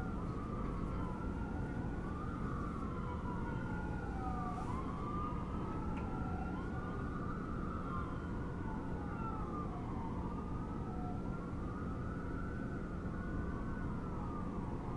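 Emergency vehicle sirens wailing in slow rising and falling sweeps, more than one overlapping, over a steady low city rumble.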